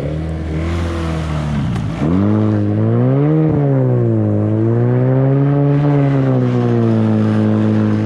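Yamaha 30 two-stroke outboard motor with a jet attachment, idling at first and then revved up about two seconds in, its pitch rising and falling as the throttle is worked.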